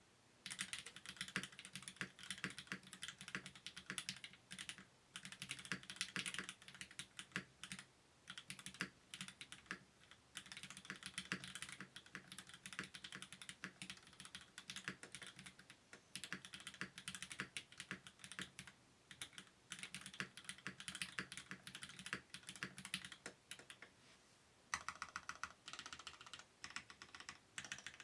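Typing on a Mode Sonnet custom mechanical keyboard: fast runs of keystrokes in bursts of a few seconds, separated by short pauses.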